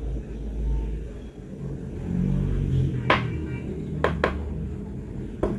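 A few sharp knocks on aquarium glass, one about three seconds in, two in quick succession a second later and one near the end, over a steady low rumble.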